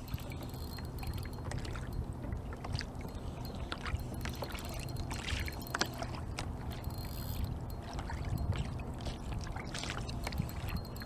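Water lapping and gurgling against a plastic kayak hull over a steady low rumble of wind on the microphone, with scattered small clicks and ticks.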